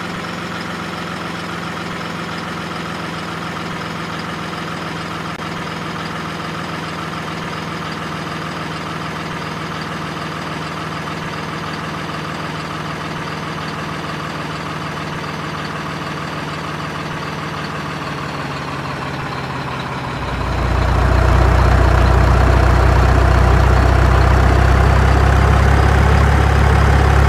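A vehicle engine idling steadily, then getting louder and deeper about twenty seconds in.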